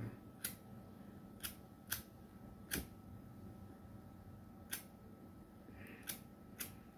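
Zippo lighter struck over and over, about seven sharp metallic clicks spaced irregularly, none of them catching: the lighter has run dry of fuel.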